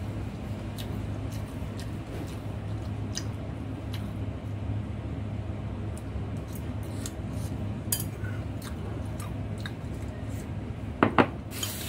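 Chopsticks clicking and tapping against a bowl while eating noodle soup: scattered small clicks, then two louder ringing clinks near the end. A steady low hum runs underneath.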